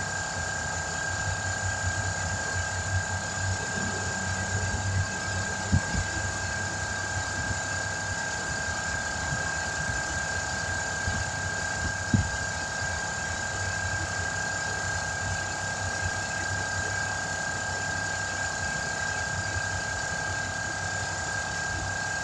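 Air compressor running steadily while it builds pressure for tire work, with a constant high whine over a low hum. Two short knocks sound, about six and twelve seconds in.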